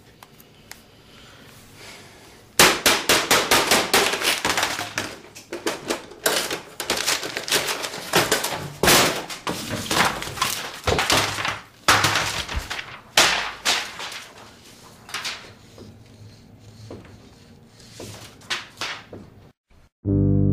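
A long stretch of crashes, thuds and breaking, like things being smashed in a small room. It starts suddenly about two and a half seconds in and dies down near the end.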